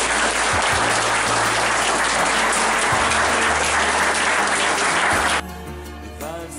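Audience applauding over background music. The applause cuts off suddenly about five seconds in, leaving only the music.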